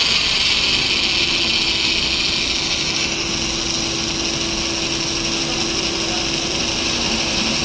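Electric drill running steadily with a constant motor whine, boring a hole through the steel of a car's shifter assembly for a lock pin.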